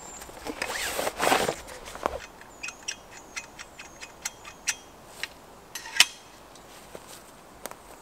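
A saw blade drawn from its sheath with a rustling scrape, followed by a run of light, sharp ticks about two or three a second as the saw is handled, one louder click about six seconds in.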